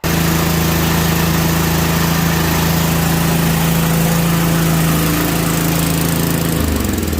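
Tecumseh 5 hp single-cylinder engine on an MTD snowblower running steadily at speed, then shut off about six and a half seconds in and winding down. It is running again after a no-start, which the owner thinks may have come from the ignition coil touching the flywheel.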